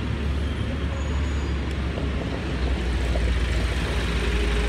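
Steady low rumble of city street traffic, with a faint whine that begins near the end and rises slowly in pitch.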